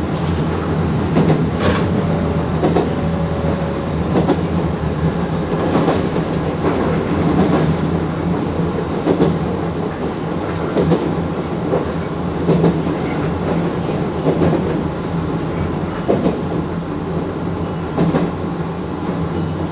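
JR 719-series electric train running along jointed track, heard from inside the train: a steady running hum with a clack from the rail joints every second or two.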